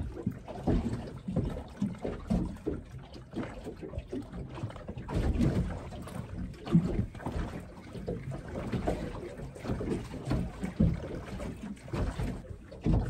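Wind gusting over the microphone on a small boat drifting at sea, with irregular low rumbling buffets and water slapping against the aluminium hull.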